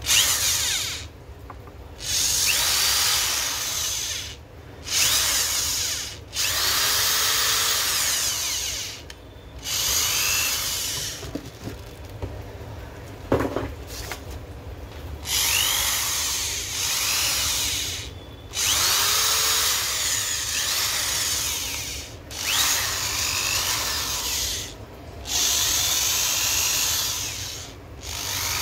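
Ideal ID EDS10N corded electric screwdriver drill running with no load in about ten short bursts on its variable-speed trigger, the motor spinning up at each squeeze and winding down at each release. A single sharp click comes in the pause about halfway through.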